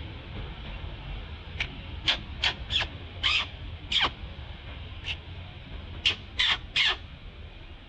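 Series of about ten short, harsh animal calls, a quick run of them about a second and a half in, a couple more in the middle and three in fast succession near the end.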